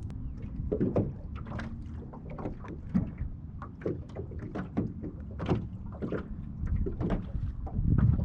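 Water lapping and slapping irregularly against the hull of a small fishing boat, over a low steady rumble.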